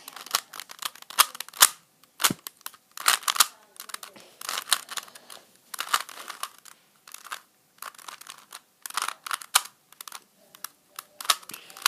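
Plastic 3x3 Rubik's Cube being turned by hand: irregular clicks and short scraping clatters as the layers are twisted, in quick bursts with brief pauses between.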